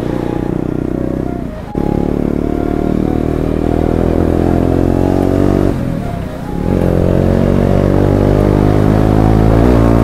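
Single-cylinder KTM Duke motorcycle engine running under way. The engine note drops off briefly twice, about two and six seconds in, then comes back and climbs in pitch.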